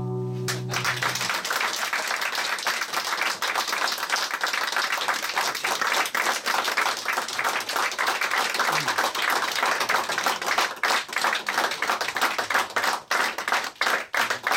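Audience applauding, over the last ring of an acoustic guitar chord that fades in the first second; near the end the applause thins to scattered claps.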